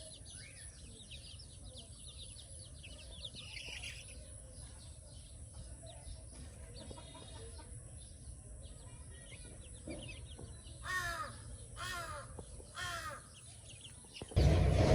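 A crow cawing three times, about a second apart, near the end over faint background noise; just before the end a loud rush of noise starts suddenly.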